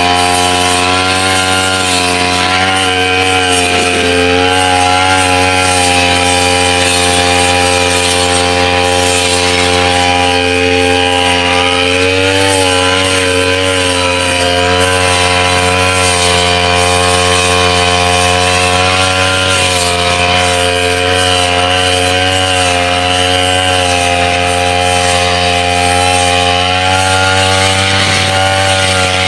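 Backpack petrol brush cutter running steadily at high speed while cutting through wet grass with its metal blade. The engine's pitch sags briefly a few times under load.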